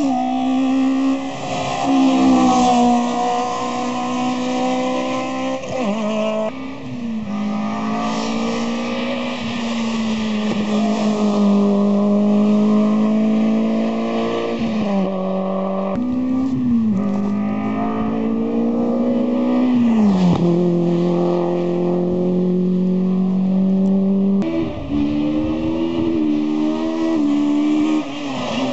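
Rally cars on a hillclimb course accelerating hard uphill, engine notes climbing through the revs and dropping sharply at each gear change, several times over.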